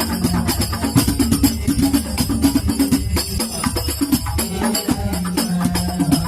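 Sholawat devotional music played through a sound system: a dense, fast percussion rhythm with a steady low held tone beneath it.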